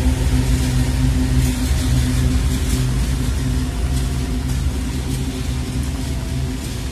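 GE Dash-9 diesel-electric locomotives passing close by as they haul a loaded tank-car train: a steady low engine drone that eases slightly as the last unit goes by.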